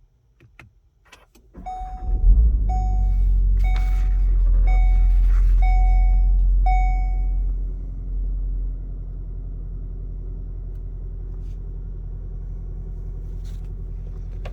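A VW Golf R's turbocharged 2.0-litre four-cylinder engine starting up, with a burst of revs that settles to a steady idle about eight seconds in. A car warning chime beeps six times, about once a second, while it starts.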